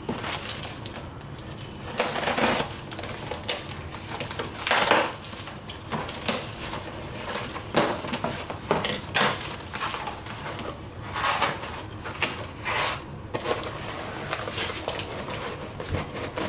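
Scissors cutting through packing tape and cardboard, with cardboard boxes scraping and rustling in irregular bursts as the packaging is opened.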